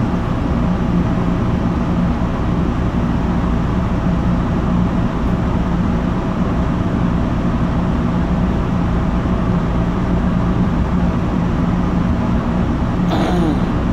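MBTA Red Line subway car running along the track, heard from inside the car: a steady rumble of wheels on rail with an even low hum, and a brief sharper squeal near the end.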